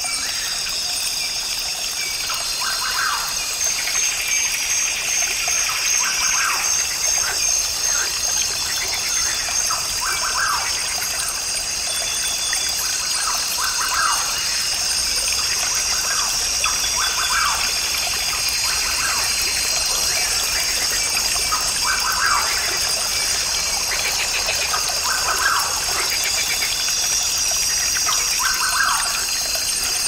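Rainforest ambience: a brook trickling steadily, with short bird calls repeating every few seconds over a steady high-pitched chorus.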